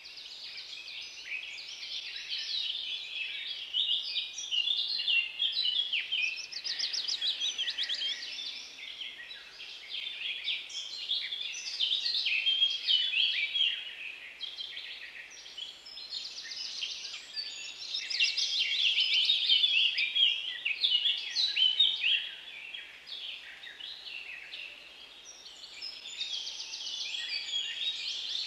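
Several songbirds singing at once: a dense, unbroken chorus of chirps, warbles and quick trills, with rapid trills standing out about a third of the way in and again near the end.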